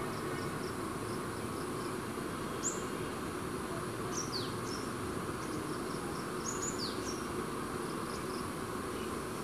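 Steady outdoor background noise with birds calling: several short, high whistled calls that sweep downward, over faint repeated high chirps.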